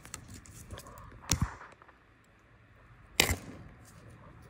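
Small metal clicks and two sharp clacks as a screwdriver pries the cover plate off an air brake compressor's unloader and its spring pops out; the second clack, about three seconds in, is the louder.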